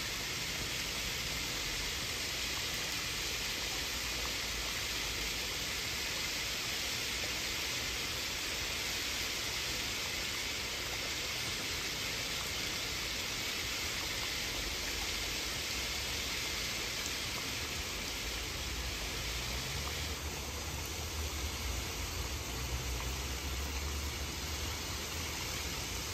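Water spraying from a garden hose and falling onto a lily pond and plants, a steady hiss. A low rumble joins in about twenty seconds in.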